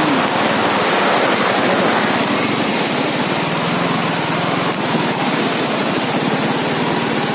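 Steady rush of wind over the microphone of a moving motorcycle, with the engine running faintly underneath.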